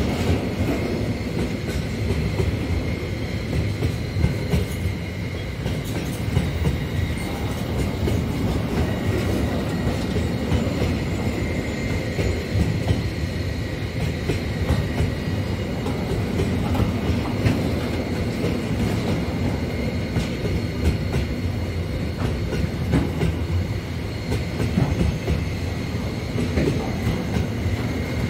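Freight train wagons rolling steadily past: a continuous rumble with wheels clacking over the rail joints and a thin, high wheel squeal running underneath.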